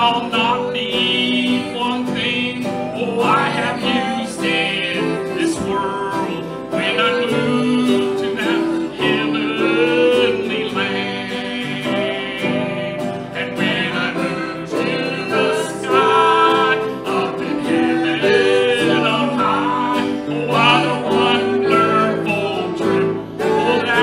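Live worship song: a man singing lead while strumming an acoustic guitar, with a band accompanying him.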